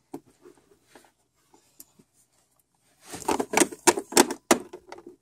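Small hard plastic toy figures clicking and tapping against a plastic playset as they are moved by hand. There are a few faint clicks at first, then a quick run of sharp taps in the last two seconds.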